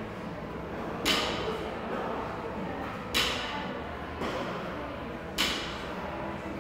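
Barbell loaded with bumper plates touching down on a rubber gym floor at the bottom of each deadlift rep: three short thuds about two seconds apart.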